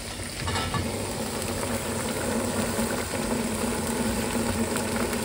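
Pork ribs boiling hard in an uncovered pan, the cooking water bubbling steadily as it reduces, over a constant low hum.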